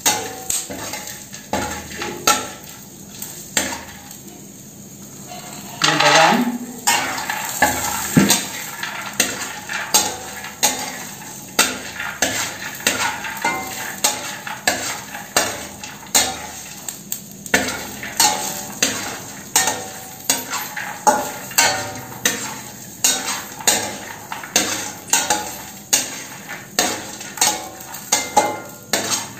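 A metal spatula stirs and scrapes chana dal, peanuts, green chillies and garlic frying in oil on a low flame in a stainless-steel kadai. The spatula clinks against the pan about twice a second over a soft sizzle.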